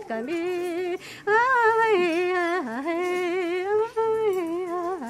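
A woman's voice singing alone, unaccompanied: long held notes that waver and slide, in short phrases with brief pauses about a second in and near four seconds.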